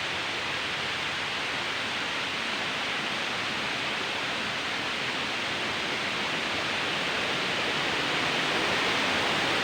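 Waterfall rushing in a steady, even roar, growing slightly louder toward the end.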